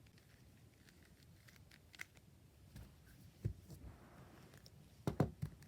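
Faint, scattered clicks of a plastic twisty puzzle being handled and turned, with sharper clicks about two seconds in and again about three and a half seconds in.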